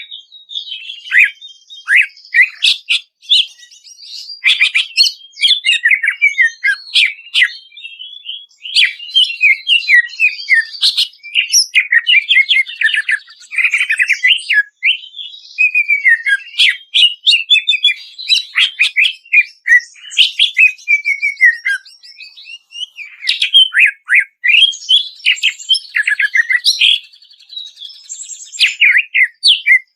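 Cucak ijo (green leafbird) singing: a fast, varied run of sharp whistled notes and quick downward slurs with a few brief pauses.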